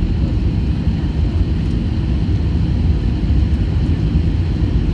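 Steady low rumble inside the cabin of an Airbus A320-family airliner in flight, on its descent to land.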